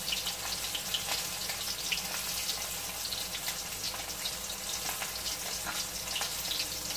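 Flour-coated tawilis (small freshwater sardines) frying in hot oil in a wok: a steady sizzle with scattered crackles and pops.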